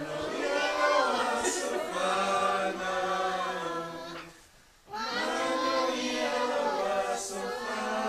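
A group of people singing together unaccompanied, holding long notes in chorus, with a short break between phrases about four and a half seconds in.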